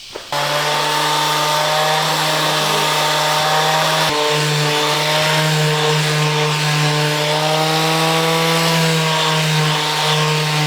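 Electric sander switching on about a third of a second in and running steadily with a pitched hum, sanding the rough, freshly rounded wooden edges smooth.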